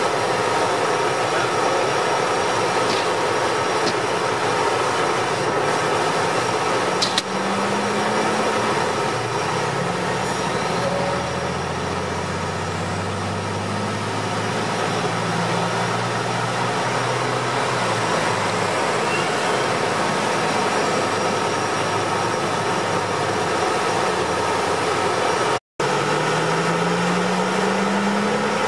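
Military convoy vehicles driving past at close range, with diesel engines running and heavy tyres on the road. An 8x8 HEMTT fuel tanker truck's diesel engine is heard strongest through the middle. Near the end a Humvee pulls through, its engine rising in pitch as it accelerates.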